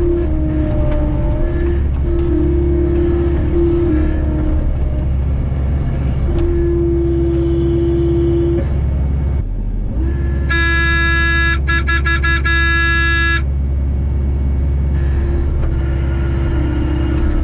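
Skid steer engine running steadily, with a hydraulic-sounding whine that comes and goes. About ten seconds in, a high, horn-like tone sounds for about three seconds with a few brief breaks.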